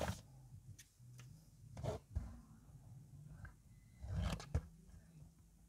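Faint rustling and scraping of a smartphone box's plastic wrap and packaging being handled, in three short bursts about two seconds apart, over a faint low hum.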